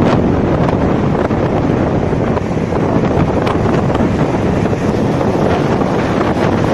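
Steady, loud rush of sea wind buffeting the microphone, mixed with the wash of surf.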